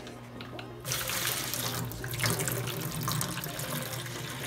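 Water pouring from a plastic fish bag through an aquarium net into a bowl of water, starting suddenly about a second in and running on steadily.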